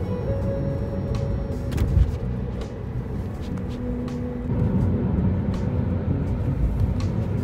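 A car driving, its road and engine noise heard from inside the cabin as a steady low rumble, with background music of held tones over it.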